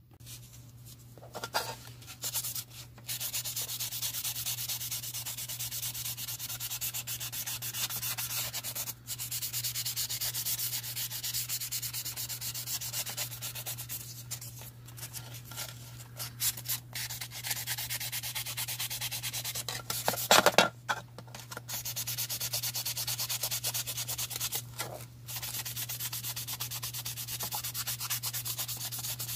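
A sanding sponge rubbed in quick back-and-forth strokes over a plastic model car body, scuffing it up as prep for primer. A steady low hum runs underneath, and there is one brief louder knock about two-thirds of the way through.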